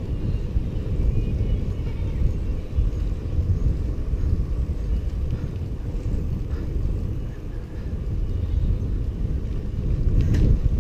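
Wind buffeting a bicycle-mounted camera's microphone while riding, a steady low rumble, with a few faint clicks near the end.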